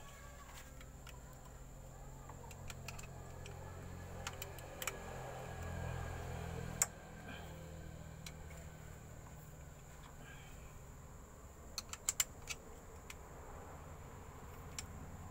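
Small steel parts of a truck gearbox's planetary section clicking and clinking as they are handled and fitted by hand: scattered light taps, a sharper click about seven seconds in and a quick run of clicks near the end, over a steady low hum.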